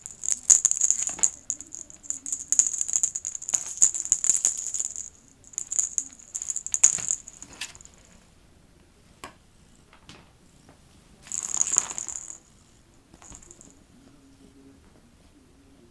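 Small jingle bell rattling in quick irregular bursts, almost continuously for the first seven seconds or so, then two shorter bursts later on.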